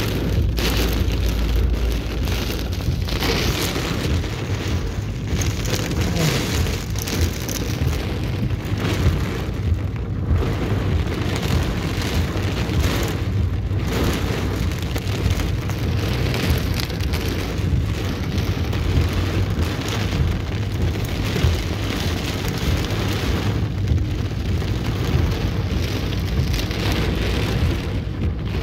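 Torrential rain drumming on a car's roof and windshield, heard from inside the car: a dense, loud, unbroken hiss full of sharp pattering hits, over a low rumble.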